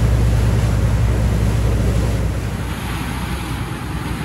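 Wind buffeting the microphone over the low, steady rumble and water rush of a motor yacht under way, easing a little partway through.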